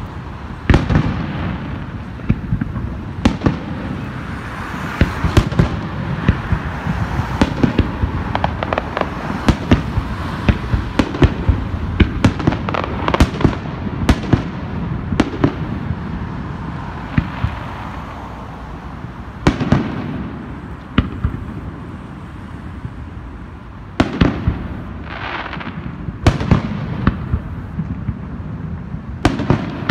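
Aerial fireworks display: shells bursting with sharp bangs over a crackling hiss. The bangs come thick and fast through the first half, thin out, then return as a few separate loud bangs near the end.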